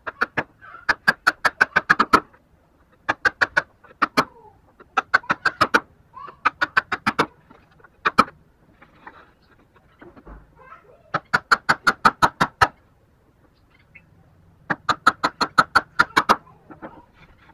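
Mallet striking a woodworking chisel as it chops into a wooden block: quick runs of sharp knocks, about six blows a second, broken by short pauses.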